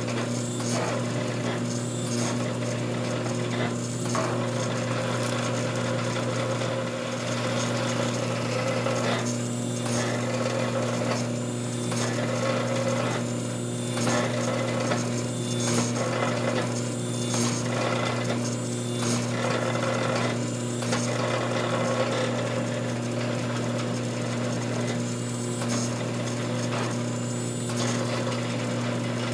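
Hydraulic forging press running: the pump motor's steady hum, with a rush of noise that drops and returns every second or two as the ram presses down on the hot wootz steel bar and lifts again, and sharp clicks here and there.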